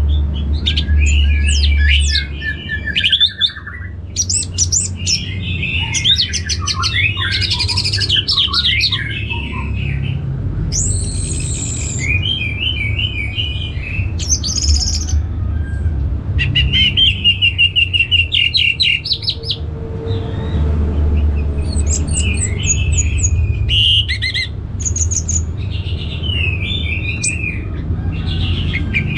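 Orange-headed thrush singing a fast, varied song of slurred whistles, chirps and trills, in phrases with a few short pauses between them.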